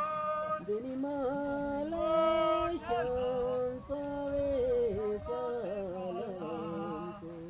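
Voices singing a slow melody of long held notes with wavering turns between them, at times more than one voice at once.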